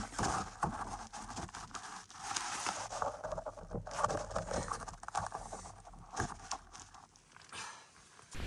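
Gloved hands handling the camera close to the microphone: irregular crinkling, scratching and scraping noises, loudest at the start and about four seconds in, dying down near the end.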